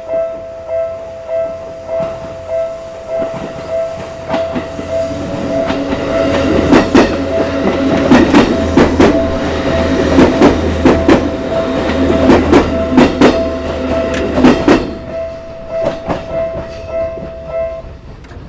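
Japanese level-crossing warning bell dinging in steady pulses, a little under two a second. In the middle, a Seibu Ikebukuro Line train passes over the crossing for about ten seconds, its wheels clattering over the rail joints. The bell stops near the end.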